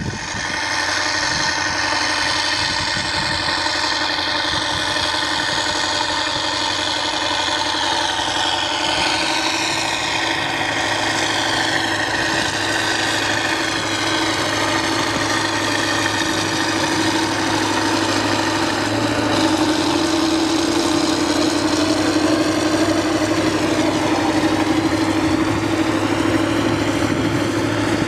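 Kirovets K-701M tractor's turbocharged V8 diesel working steadily under load, pulling a disc harrow through stubble. A constant heavy engine drone with a higher whine that drifts down in pitch now and then, getting a little louder in the second half as the tractor comes closer.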